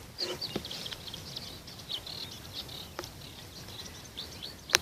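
Small birds singing, a busy dawn chorus of short, quick high chirps overlapping one another, over a faint steady outdoor hiss. A sharp click near the end is louder than the birds.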